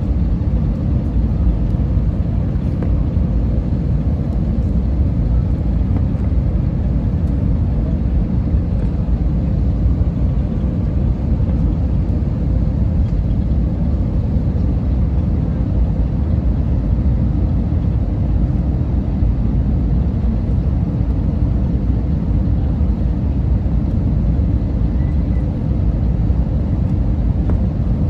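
Steady low rumble of an Airbus A320neo heard from inside the passenger cabin, its engines running.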